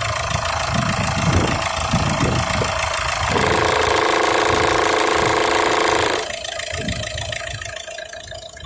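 A Peugeot 308's 1.6 HDi four-cylinder diesel engine running, with a loud rattle from its upper heat shield, which is split where it bolts onto the engine. The sound drops and fades away after about six seconds.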